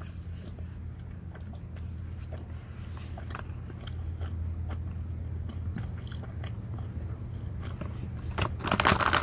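Someone chewing Haribo Goldbears Sour gummy bears: scattered small mouth clicks over a low steady hum. Near the end the plastic snack bag crinkles loudly.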